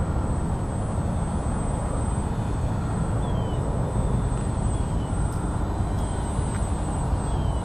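Wind rumbling on the microphone, with the faint whine of the ElectriFly VFO's electric motor and propeller in flight, dropping in pitch a few times in short glides.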